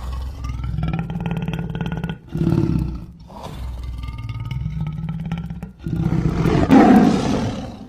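Prehistoric creature roar sound effect: a deep, rumbling growl, a short grunt, a second long growl, then a louder, harsher roar near the end that cuts off abruptly.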